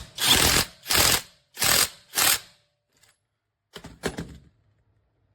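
Cordless impact wrench hammering in short trigger bursts: five quick bursts in the first two and a half seconds, then two shorter ones after a pause.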